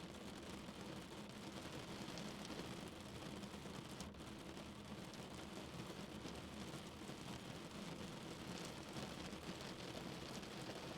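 Heavy rain drumming on a car, a steady dense patter of drops over a low rumble.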